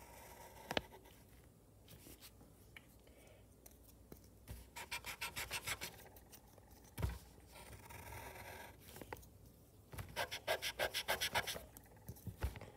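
A rubber eraser and a pencil working on paper: quick back-and-forth rubbing strokes, several a second, in two spells, about five seconds in and again near ten seconds, with a few soft knocks between them.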